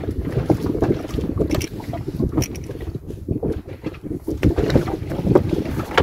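Wind buffeting the microphone in an uneven low rumble, with scattered small clicks and knocks.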